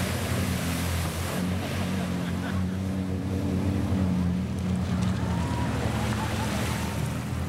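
Side-by-side UTV engine running steadily as the machine pushes through deep muddy water, with water churning and splashing around it.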